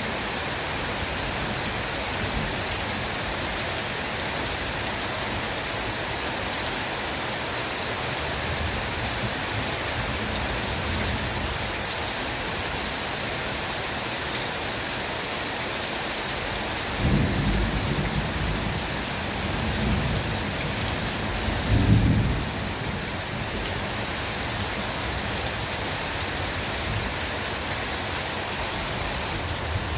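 Steady rain falling in a forest, an even hiss throughout. Low rolls of thunder come in the second half: one about halfway through, another soon after, and the loudest around two-thirds in.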